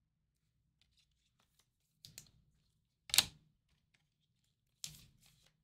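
Trading cards and their packaging being handled: faint ticks, then three short scraping rustles about two, three and five seconds in, the middle one the loudest.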